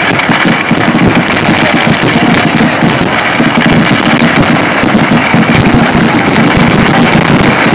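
Fireworks display going off in a dense, continuous barrage of rapid bangs and crackling, loud throughout.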